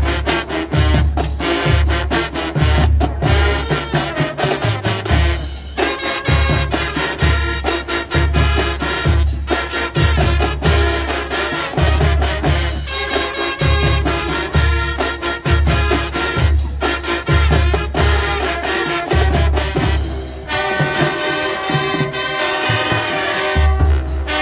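High school marching band playing brass and drumline together, with a strong low beat from bass drums and low brass under sharp percussion hits. Near the end the low beat stops for about three seconds while the horns carry on, then comes back.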